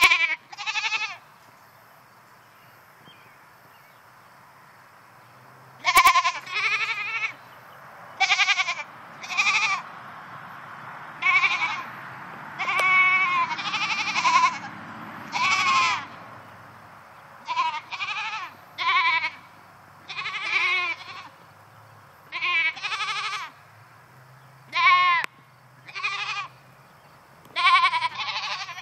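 Goats bleating again and again in short, wavering calls, with a lull of a few seconds near the start. These are the calls of goats unhappy at being left alone in their pen.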